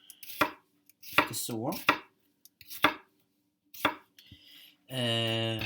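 Kitchen knife chopping on a cutting board: separate sharp strokes, about one a second.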